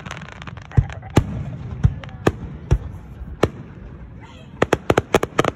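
Aerial firework shells bursting overhead: single sharp booms roughly every half second at first, then, after a short lull, a rapid run of crackling reports near the end.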